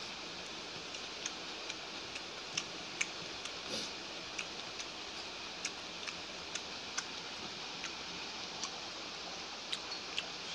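Eating sounds close to the microphone: small irregular clicks and smacks, about one or two a second, from chewing and from fingers mixing rice on a plate, over a steady hiss.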